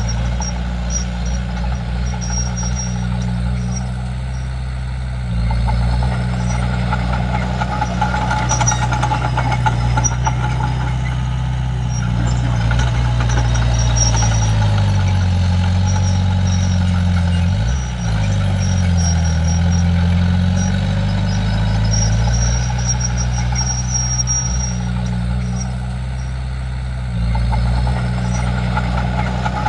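Komatsu D31P bulldozer's diesel engine running steadily. It gets louder about five seconds in, its pitch sags and comes back up around the middle, and it drops back near the end.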